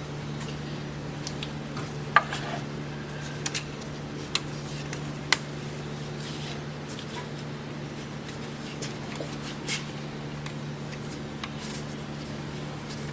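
Metal tools or parts clinking sharply several times, the loudest about two seconds in with a short ring, over a steady low hum.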